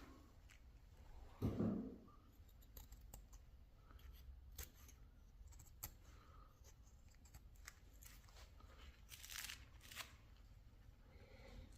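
Hand chisel paring wood: faint short scraping cuts and small clicks. There is one dull thump about a second and a half in, and a longer hissing shaving stroke near the end.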